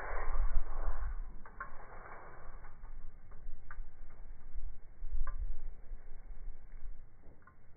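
A punctured spray paint can venting through its shot-off top with a hiss that is strongest in the first second and then faint, under wind rumbling on the microphone. A few sharp ticks sound at scattered moments.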